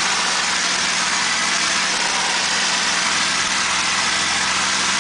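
P-51 Mustang's V12 engine running in flight with airflow over the canopy, heard inside the cockpit as a loud, unchanging drone with a strong hiss and a steady low hum.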